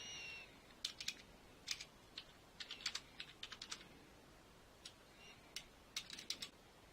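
Keys of a Trust ClassicLine computer keyboard being pressed, clicks coming in irregular quick clusters about a second in, between two and four seconds, and again around six seconds. A brief thin squeak sounds right at the start.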